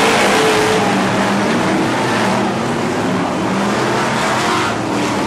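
Pack of BriscaF1 stock cars racing at full throttle, their V8 engines running loud together, with several engine notes rising and falling as the cars pass.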